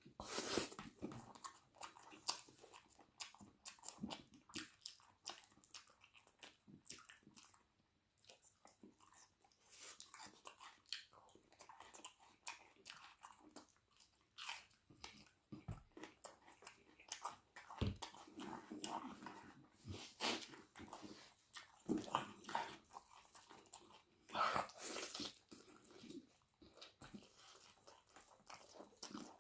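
Close-miked eating sounds: a person chewing and crunching a meal of chicken wing curry, rice and raw onion, with irregular bites and mouth clicks. There are several louder crunches in the second half.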